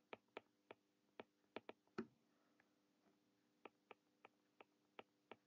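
Faint, irregular clicks of a stylus tapping on a tablet screen while handwriting, about a dozen in all, the loudest about two seconds in, with a pause of a second or so in the middle.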